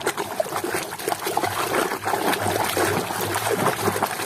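Water sloshing and splashing in a plastic tub as a hand scrubs a toy car under the surface. The splashes come in quick, irregular strokes.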